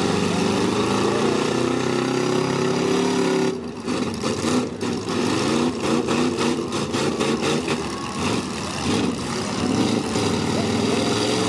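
Stock V8 demolition-derby cars with their engines revving up and down hard. From about four seconds in there is a run of sharp metallic bangs and knocks as the cars crash into each other.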